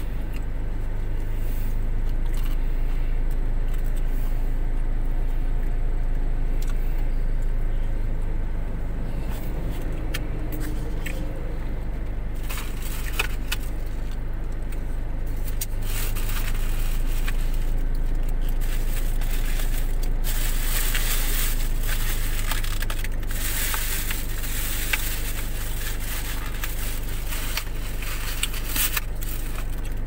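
A car's engine runs steadily, heard as a low hum inside the cabin. Over the second half come crackling, scraping rustles of plastic takeaway food packaging being handled, heaviest from about twenty seconds in until just before the end.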